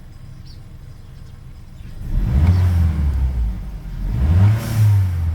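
Volkswagen Jetta Mk6 engine idling, then revved twice, about two seconds in and again about four seconds in, each rev rising and falling back to idle.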